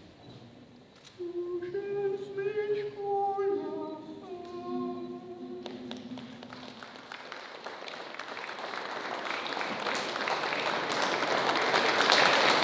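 A short melody of held notes stepping in pitch, then audience applause that starts about six seconds in and swells steadily louder.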